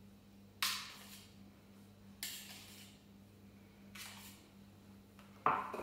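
Small spatula scraping soft cinnamon-butter filling off an enamel bowl and dabbing it onto rolled dough: a short scrape about every second and a half, then a louder knock near the end. A low steady hum runs underneath.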